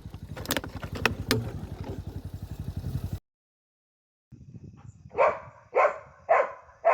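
A vehicle engine running with a low, even pulse and a few sharp clicks, then cut off abruptly. After a second of silence, a dog barks repeatedly, a bit under twice a second.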